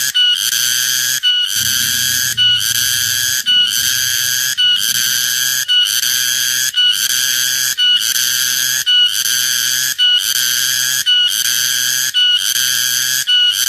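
Cicada calling: a loud, shrill buzz at a steady high pitch, broken by short gaps about once a second into regular repeated phrases.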